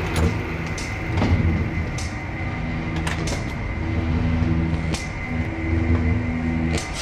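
Electronic music with low sustained tones that shift in pitch every half second or so, punctuated by sharp percussive hits about once a second.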